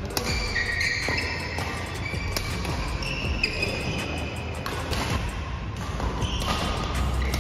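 Background music with a high stepping melody and a beat, with short thuds and taps.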